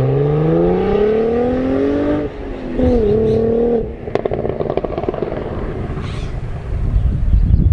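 Cadillac CT4-V Blackwing's 3.6-litre twin-turbo V6 accelerating hard, its pitch climbing to an upshift about two seconds in. It pulls briefly in the next gear, then lets off about four seconds in to a run of exhaust crackles over a low rumble.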